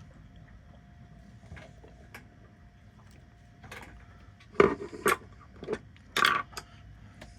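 Scattered clicks, knocks and a short scrape from tools and plastic and metal parts being handled while working a glued-on thermostat loose inside a bread maker. The loudest are a pair of knocks past the middle and a brief scrape about six seconds in.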